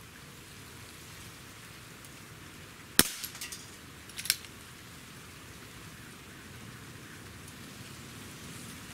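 Umarex Smith & Wesson Model 29 CO2 air revolver firing one H&N Match Green pellet: a single sharp pop about three seconds in, followed by a few small clicks and another sharp click about a second later.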